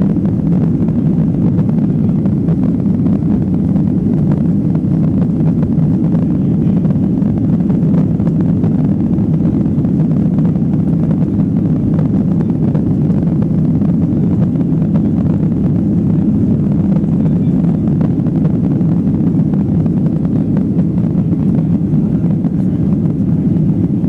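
Boeing 737-800 cabin noise during the climb after takeoff: the steady, low rumble of the CFM56 engines and rushing air, heard from a window seat inside the cabin.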